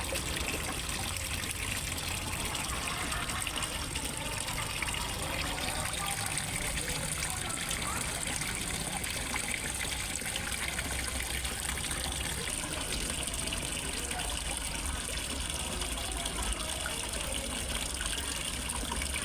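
Water from a small pond waterfall splashing and trickling steadily into a fish pond.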